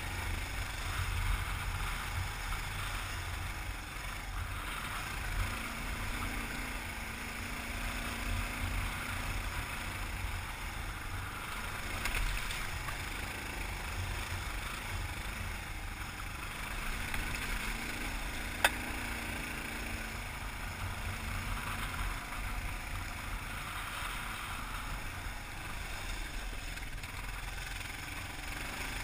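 Kawasaki KLR dual-sport motorcycle's single-cylinder engine running steadily over a rocky trail, with wind noise on the helmet microphone. A single sharp click about two-thirds of the way through is the loudest moment.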